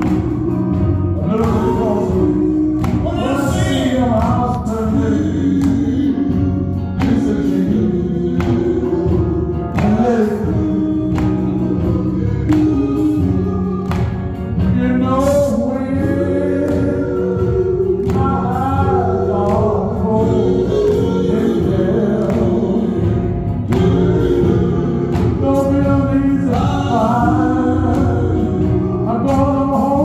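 Male gospel group singing live, a lead voice over backing harmonies, with electric guitar and a steady beat.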